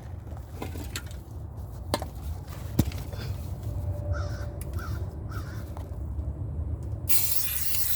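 A crow caws three times in quick succession in the background over a low rumble and a few handling clicks. About seven seconds in, an aerosol can of primer starts spraying in a short hiss.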